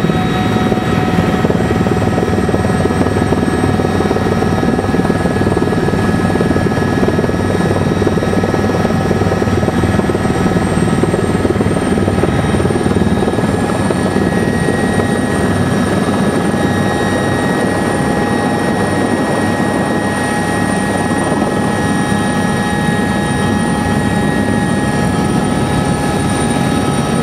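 Helicopter cruising, heard from inside the cabin: a loud, steady engine and rotor drone with a few constant whining tones over it.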